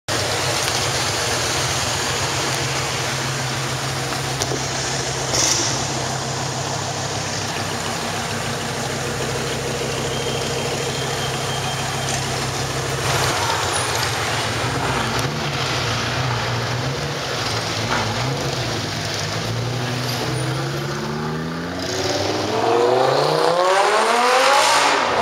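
Lamborghini Gallardo LP560-4's V10 with a Larini exhaust idling with a steady low burble, with one sharp crack about five seconds in. Midway the engine note wavers, and near the end it revs up hard, rising steeply in pitch and getting louder as the car accelerates.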